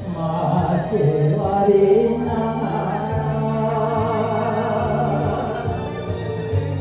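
A man singing an enka ballad into a microphone over a karaoke backing track, his held notes wavering with vibrato.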